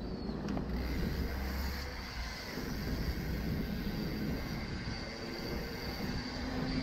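Steady rumble of a mountain bike's tyres rolling over paving and tarmac.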